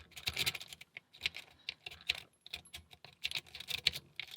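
Small metal padlocks and lock picks clinking and rattling as they are handled, in irregular bursts of light metallic clicks.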